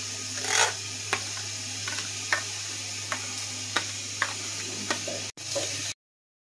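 Metal spoon stirring mashed boiled potato and hot water in a steel bowl, clinking against the bowl roughly every half second over a steady background hiss. The sound cuts out suddenly near the end.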